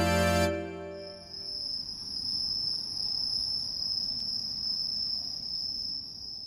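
A music chord from the intro fades out in the first second or so. Then crickets trill in one steady, high-pitched tone that cuts off just before the end.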